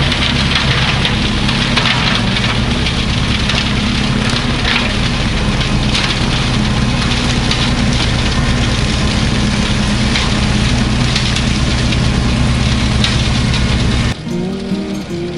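Kubota B2650 tractor's diesel engine running steadily. About a second before the end it cuts off abruptly and quieter music takes over.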